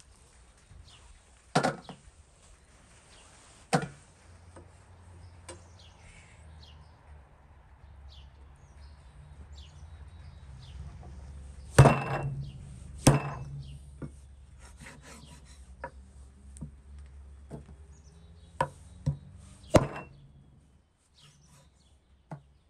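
Heavy meat cleaver chopping raw meat on a thick wooden cutting board: single sharp chops a few seconds apart, the loudest two about a second apart midway, then three in quick succession near the end, with lighter taps and scrapes between.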